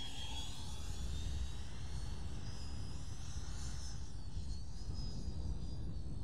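Electric ducted fan of the FMS 80mm Integral RC jet whining as the jet makes a low pass. The pitch dips as it goes by, then rises and wavers up and down as it flies off, over a low rumble.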